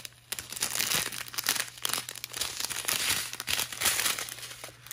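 Strip of small plastic zip-top bags of diamond painting drills crinkling as it is handled, an irregular run of rustles and crackles.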